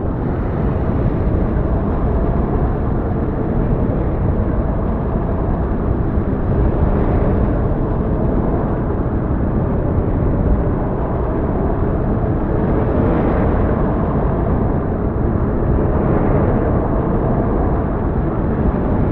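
Snowfall ambience: a steady, dense, low rumbling noise that holds an even level.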